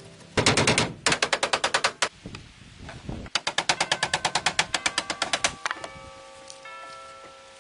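Two quick runs of sharp clicks or knocks, about ten a second, the first lasting about a second and a half and the second about two seconds. Soft background music with held notes comes in near the end.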